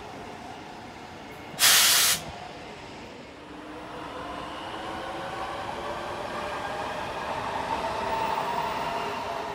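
A short, loud hiss about two seconds in. Then an SL X60B electric commuter train approaches, its running noise growing louder with several steady whining tones in it.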